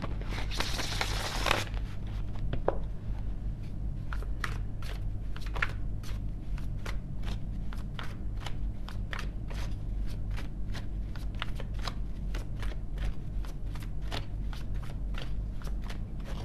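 A deck of cards being shuffled by hand: a dense rush of cards in the first second and a half, then many light, irregular card clicks, over a low steady hum.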